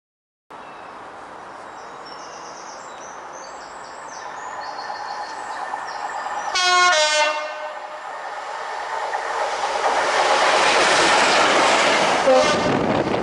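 Freightliner Class 66 diesel locomotive approaching at the head of a freight train, with engine and rail noise growing steadily louder. About six and a half seconds in it sounds its two-tone horn, two notes one after the other, and gives a brief horn note again near the end.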